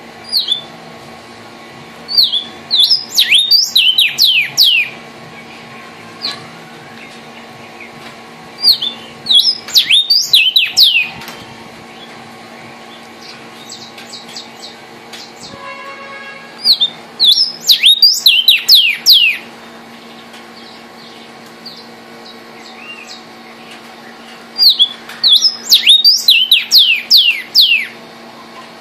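Vermilion cardinal (cardenal guajiro) singing: four song phrases about every seven to eight seconds. Each is a quick run of loud, clear whistles, every whistle sliding down in pitch.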